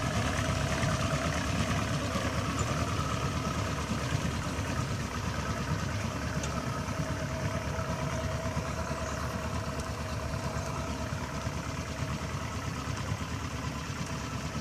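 Pontoon boat's motor running steadily at cruising speed, a low hum with a few held tones, growing slightly fainter as the boat moves away across the water.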